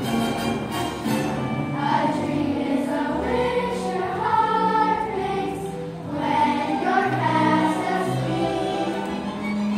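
A cast of children singing a song together in chorus over musical accompaniment, the voices holding long notes.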